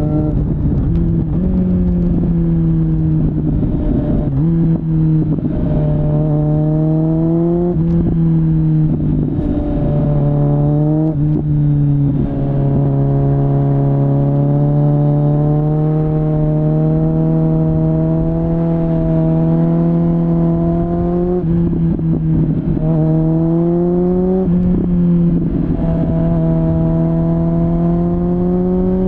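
Kawasaki Z900's inline-four engine through a LeoVince LV10 aftermarket exhaust, ridden with the sound recorded on board. It accelerates through the gears, the pitch climbing and dropping briefly at each shift about four, eight and twelve seconds in, then holds a steady cruise for several seconds before pulling up through two more shifts near the end.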